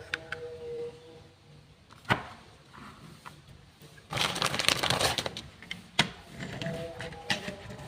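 Plastic toy vehicle parts being handled: a sharp click about two seconds in, a dense rattling clatter lasting about a second near the middle, and another click about six seconds in.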